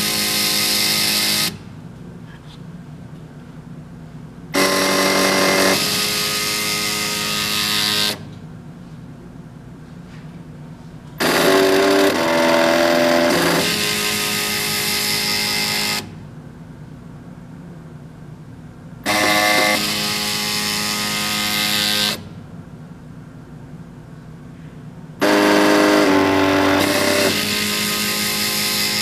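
Stepper motors of a home-built pen-plotting drawing machine whining as it moves the pen. The whine comes in stretches of three to five seconds, separated by pauses of about three seconds, and within each stretch it steps between several steady pitches as the pen changes direction along the lines.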